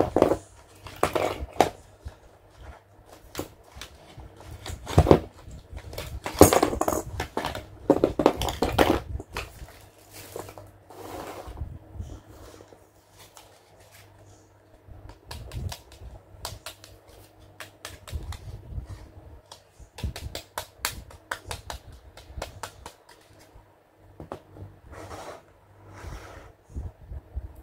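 Plastic toy packaging crinkling and rustling as it is handled and opened, mostly in the first half. Later, many short sharp clicks and taps of hard plastic toy pieces being handled and set down.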